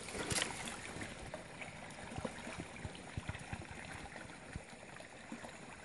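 Small spring-fed stream running over rocks, a steady wash of water, with a few faint knocks and a brief rustle about half a second in.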